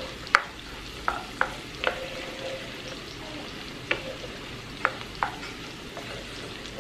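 Guanciale, onion and garlic sizzling in a sauté pan while a wooden spoon stirs them, scraping and knocking sharply against the pan several times.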